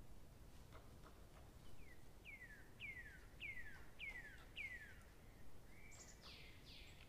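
A bird calling faintly in the background: a series of six clear whistles, each falling in pitch, about two a second, then a longer, harsher call near the end.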